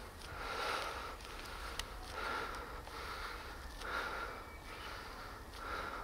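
A person breathing hard and evenly, about one breath every second and a half to two seconds: the hiker is winded from climbing a steep forest trail.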